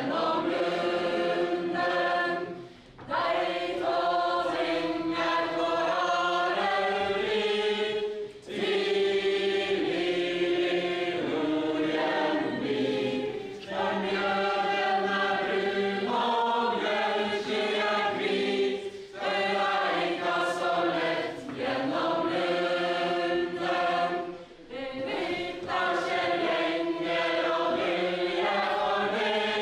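A chain of dancers, men and women together, singing a Norwegian medieval ballad without instruments as they dance the stordans. The singing goes in sung lines with a short breath about every five to six seconds.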